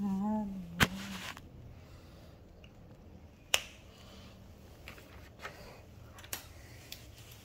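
Handling noise from a phone being held and moved: sharp clicks and knocks as fingers bump it. The loudest comes just under a second in and another at about three and a half seconds, with softer taps after.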